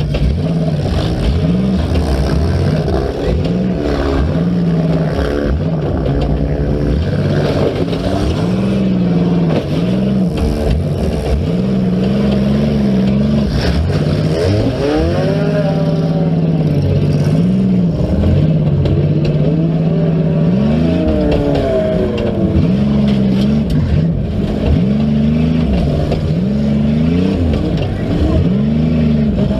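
Demolition derby car engines revving, their pitch rising and falling again and again as several engines run at once.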